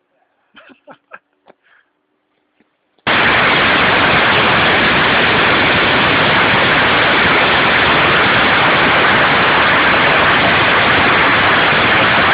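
A long string of Chinese firecrackers going off: a dense, unbroken crackle of rapid bangs that starts suddenly about three seconds in, is very loud, and keeps going for about ten seconds before beginning to die away at the very end.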